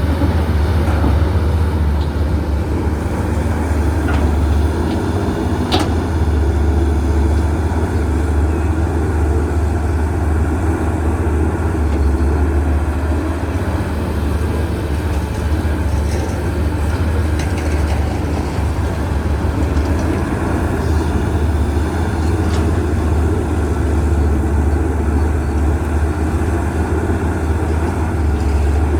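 CAT 320CL excavator's diesel engine running steadily under working load, a deep even drone, with a few faint clicks.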